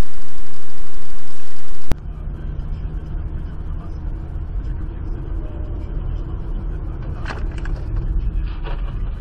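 Dashcam audio of a motor vehicle: a very loud, clipped engine running at idle cuts off abruptly about two seconds in. Then comes the steady low rumble of a car driving along a road, heard from inside the cabin, with a few brief clicks near the end.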